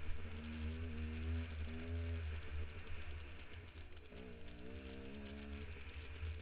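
Dirt bike engine running under load on a steep climb, its pitch rising and falling with the throttle and climbing again about four seconds in. A heavy low rumble of wind buffets the helmet-camera microphone.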